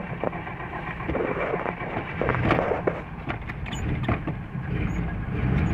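A 1949 DeSoto's flathead six-cylinder engine being started with the dash push-button starter: the starter cranks, then the engine catches and runs, louder from about a second in.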